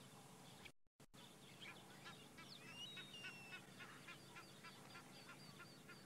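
Faint birdsong: several birds chirping and whistling in short, repeated notes, with a brief dropout in the sound about a second in.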